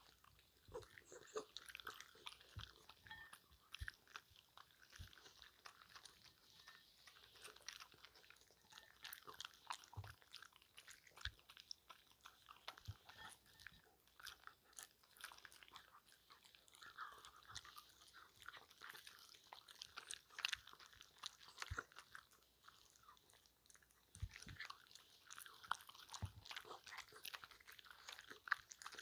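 Miniature schnauzers and West Highland white terriers biting and crunching small hard treats taken from a hand. The sound is faint, close-miked, irregular crisp crunching.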